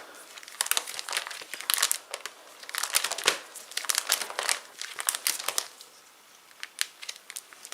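Irregular crinkling and rustling of plastic and card as a trading-card collection is handled, with many short crackles that thin out near the end.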